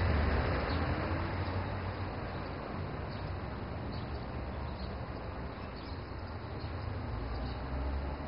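Road traffic noise: a steady hiss with a low engine rumble underneath.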